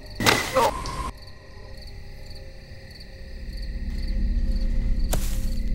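Crickets chirping steadily, with a short loud rushing noise near the start and a low rumbling drone that swells up from about halfway through, then a sharp hit near the end.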